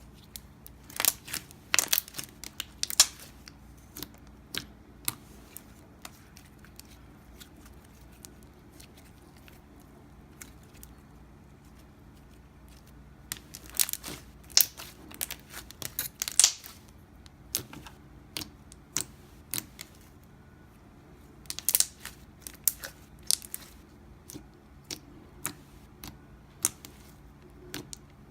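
Slime being squished and stretched by hand, giving clusters of sharp sticky pops and crackles with quiet gaps between them.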